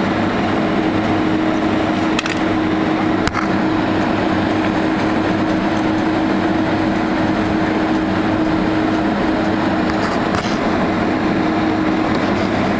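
Steady cabin noise inside a Boeing 767-200 taxiing after landing: the engines at taxi power and the cabin air, with a constant low hum. Two brief clicks about two and three seconds in.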